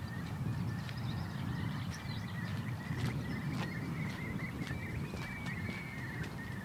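Footsteps walking on a hard lane, about two steps a second, over wind rumbling on the microphone, with small birds chirping and trilling.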